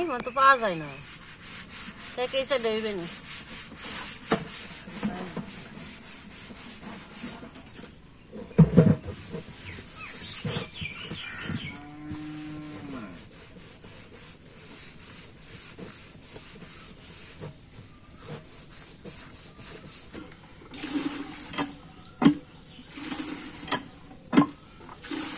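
Small fish being scaled and cut on a boti, a curved blade on a stand: repeated scraping and rubbing of blade on fish. A cow moos once about twelve seconds in, and a single dull thump comes just before that.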